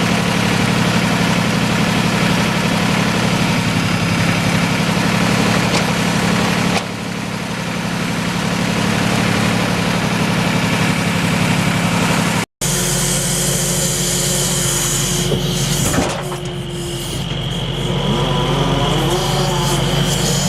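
Logging truck's diesel engine running steadily under the log loader. It breaks off for an instant about twelve seconds in, then carries on with one sharp knock and a few short rising whines.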